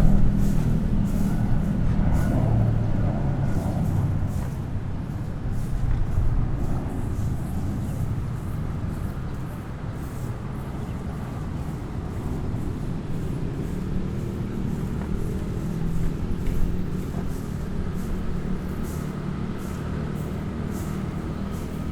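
City street traffic: motor vehicles running and passing, loudest in the first few seconds. A steady engine hum carries through the second half.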